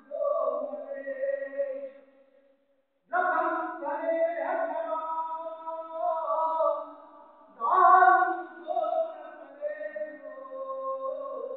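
Voices singing a Sufi devotional chant together, unaccompanied, with a brief pause about two seconds in before the singing resumes.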